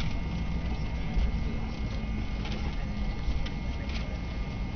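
Airliner cabin noise while the plane rolls along the runway after touchdown: a steady low rumble with a thin steady engine whine over it, and a few sharp knocks along the way.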